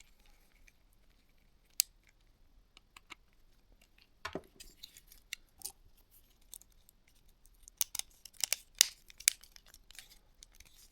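Scattered small clicks and taps of a mobile phone's plastic parts being handled and fitted together, with a quick run of sharper clicks about eight to nine seconds in.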